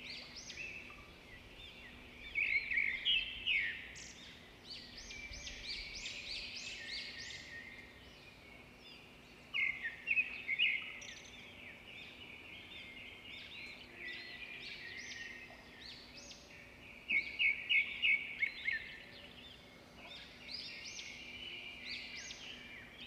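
Small birds chirping and twittering in quick runs of high notes, louder in bursts about two, ten and seventeen seconds in.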